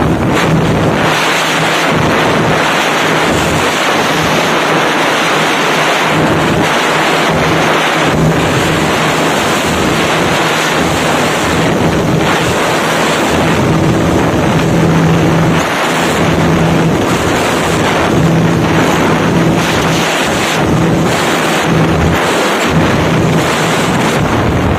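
Wind rushing over the microphone of a TVS Apache RTR 160 2V ridden flat out at about 124 km/h. The bike's single-cylinder engine drones steadily at high revs underneath.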